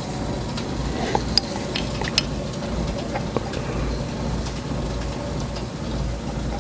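Light metallic clicks and clinks of a bent intake tube being handled and fitted against the cylinder head of a model five-cylinder radial engine, a few sharp ticks mostly in the first half, over a steady low hum.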